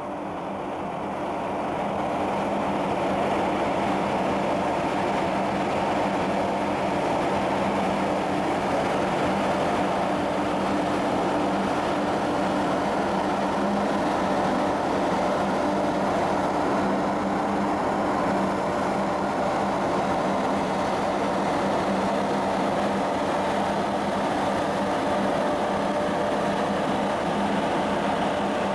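Steady drone of a tanker's shipboard machinery as the ship passes close, with a low hum under a broad rushing noise. The sound rises over the first two seconds, then holds steady.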